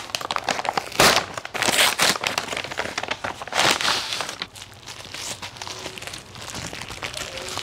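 Kraft-paper mailer being torn open and a bubble-wrap pouch pulled out and handled, with paper and plastic crinkling in irregular rustles. The rustles are loudest in the first four seconds and quieter after that.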